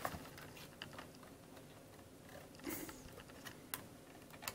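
Faint, sparse plastic clicks and taps as a toy rifle accessory is worked against the plastic body of a Hasbro Black Series landspeeder toy while being fitted to its side mount.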